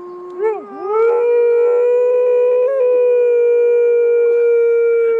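Husky-type dog howling: one long, steady howl that rises in pitch about a second in and then holds. It follows a shorter, lower howl at the start.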